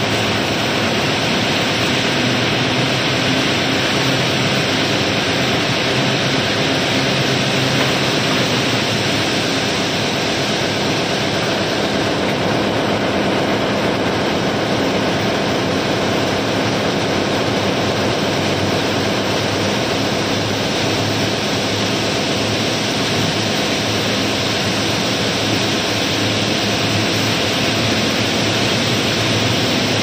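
Rounded river pebbles pouring steadily from a barge's gravel heap through an opening, a continuous dense rattle of many stones sliding and clattering together.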